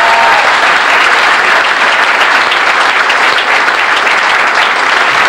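Audience applauding, a dense steady clapping that holds at the same level throughout.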